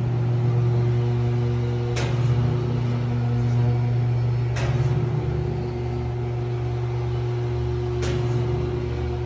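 Stainless-steel poultry scalder running with a steady electric motor hum, with three sharp clicks a few seconds apart.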